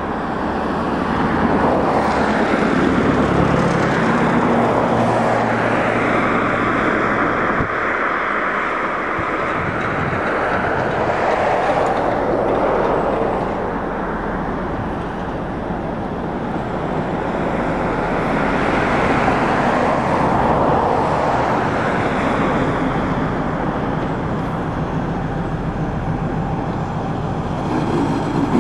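An M62 diesel locomotive's two-stroke V12 diesel engine running as the locomotive rolls slowly along the track. The heavy engine note is steady, swelling and easing a little over the seconds.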